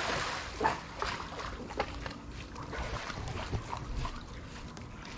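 Pool water splashing and lapping as a miniature schnauzer paddles, with scattered small splashes. The splashing is heaviest in the first second and then settles.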